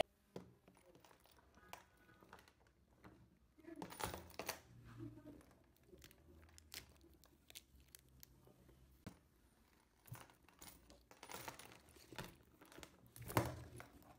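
Thin plastic protective wrap crinkling as it is peeled off a new handbag's metal clasp, with scattered light clicks and taps from the bag's metal hardware. The crinkling comes in two louder spells, about four seconds in and again near the end.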